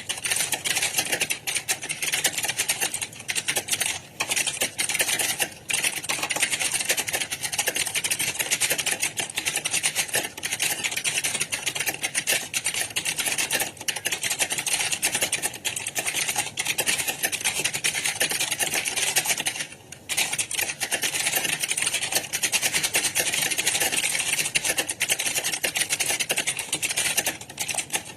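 Many computer keyboards being typed on at once, a dense, continuous clatter of key clicks, as in a typing exam hall. It dips briefly about four seconds in and again about twenty seconds in.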